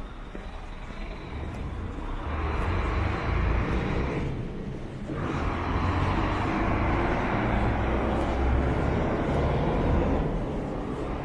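Road traffic passing close by: a whooshing tyre-and-engine noise swells about two seconds in, drops briefly, then swells again for a longer pass before fading near the end.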